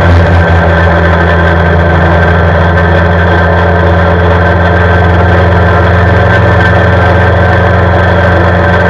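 CFMoto CForce 520 ATV's single-cylinder engine running steadily while riding along an asphalt road.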